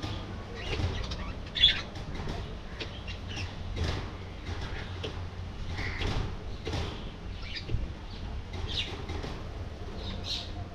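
A flock of budgerigars chirping and chattering in short, scattered calls, with one sharper, louder chirp about two seconds in, and wings flapping now and then.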